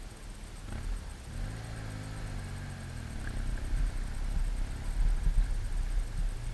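Enduro motorcycle engine running over a steady low rumble, with a pitched engine drone between about one and three seconds in.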